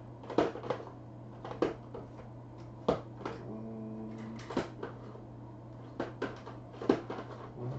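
Scattered knocks and clicks of small objects and drawers being handled at a repair bench, irregular and sharp. A short steady pitched tone sounds about three and a half seconds in. A low hum runs underneath.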